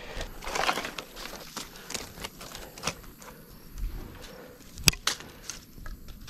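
Dry leaves and twigs being handled as fire tinder: irregular light crackles and rustles, with two sharp snaps close together about five seconds in.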